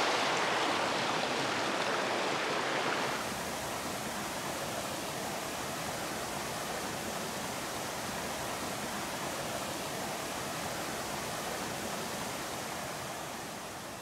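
Mountain stream water running over rocks, a steady rushing noise. About three seconds in it changes suddenly, becoming quieter and hissier.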